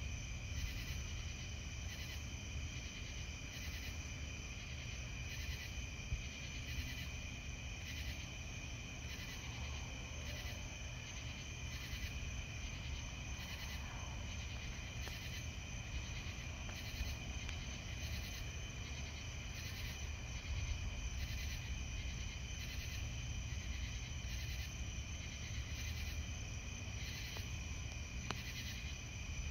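Night insects calling steadily, a shrill chorus with a pulsing call repeating about once a second, over a low steady rumble.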